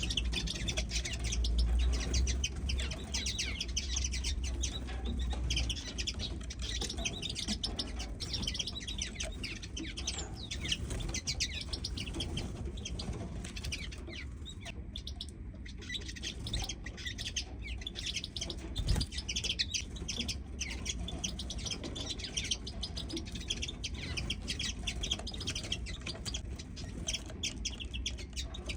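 Small songbirds of the finch kind chirping and twittering, with many quick high calls overlapping almost without pause and a brief lull around the middle. A steady low rumble runs underneath.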